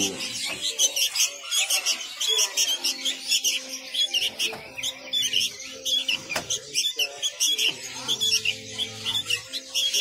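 Many caged songbirds chirping in a dense, rapid chorus of short high calls, with a faint steady low tone underneath.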